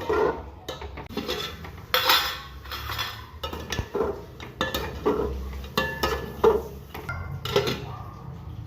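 Metal spoon knocking and scraping against a cooking pot while stirring, in irregular clinks and clatters.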